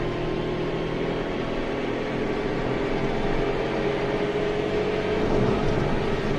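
In-cabin sound of a Maruti Suzuki Alto 800's three-cylinder petrol engine pulling hard under full-throttle acceleration in third gear, the engine note rising slowly, with road noise.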